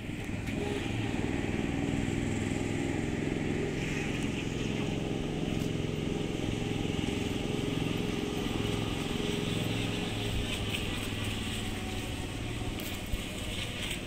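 An engine running steadily at an even low pitch.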